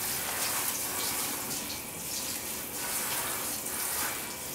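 Handheld shower sprayer running into a bathtub as a small dog is rinsed: a steady hiss of spraying and splashing water.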